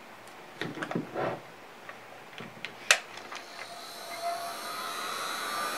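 Heat gun switched on with a click about three seconds in, its fan motor spinning up with a whine that rises in pitch and grows steadily louder, as it is run to fuse a coat of encaustic wax.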